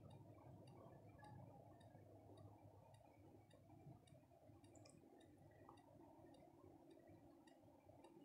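Near silence: a faint low hum with faint, regular ticking about twice a second.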